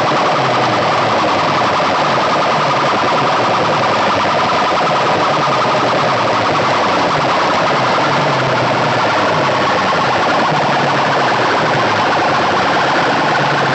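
Very loud, distorted siren-like electronic sound blasting from a tall stack of horn loudspeakers on a competition sound rig. It wavers and sweeps without a break.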